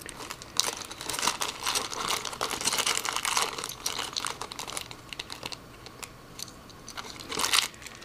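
Small clear plastic zip bag crinkling and rustling as fingers open it and take out the keycaps and keycap puller. The crinkling comes in irregular spells, busiest in the first half, with another short rustle near the end.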